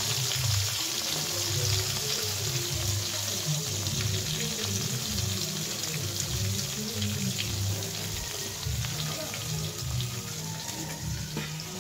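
Brinjal pieces sizzling in hot oil in a wok, the sizzle easing after the first few seconds as they are lifted out, with background music playing throughout.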